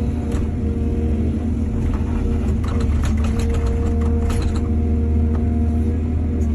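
Excavator's diesel engine running steadily under load, with a run of clattering knocks from about two and a half to four and a half seconds in.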